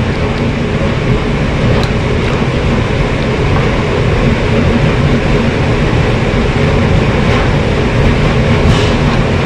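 DeVilbiss GTi Pro spray gun atomizing clear coat with a steady, loud rush of compressed air, with a low rumble beneath it.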